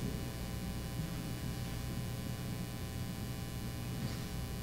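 Quiet room tone with a steady electrical hum from the microphone and sound system, made of several steady tones over a faint hiss.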